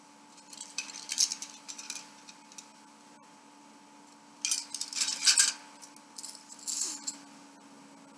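Loose plastic Lego bricks clattering and clicking together as they are handled, in bursts: about a second in, again around five seconds in, and briefly near seven seconds.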